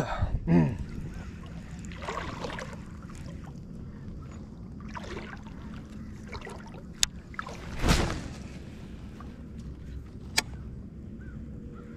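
Steady wind and water sound at a riverbank, with a few swishes and two sharp clicks from a baitcasting rod and reel being handled; the loudest swish comes about eight seconds in.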